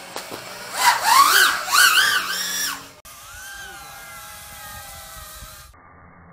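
ZMR250 racing quadcopter's brushless motors and tri-blade propellers whining. They spin up about a second in and rise and fall in pitch with sharp bursts of throttle. After about three seconds the whine goes on softer and steadier.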